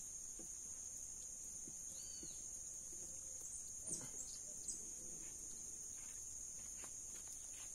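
Insects droning in a steady, high-pitched outdoor chorus, with a few faint scattered knocks, the loudest about four seconds in.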